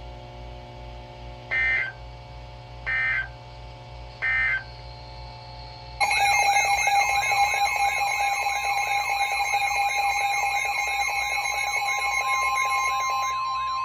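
NOAA Weather Radio alert signals. First come three short bursts of digital data tones, about a second and a half apart: the SAME end-of-message code closing a severe thunderstorm warning. About six seconds in, a loud warbling electronic alert tone starts for the next warning, and a steady high tone joins it near the end.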